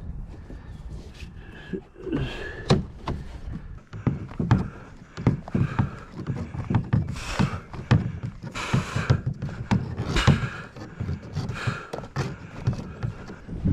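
Fishing gear being handled and rummaged through: a run of irregular knocks, thunks and rustling, with a few louder hits.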